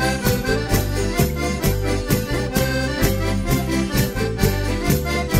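Madeiran traditional folk music led by accordion over a steady, even beat.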